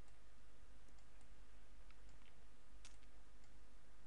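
A few sparse computer mouse clicks, the clearest about three seconds in, over a steady low hum.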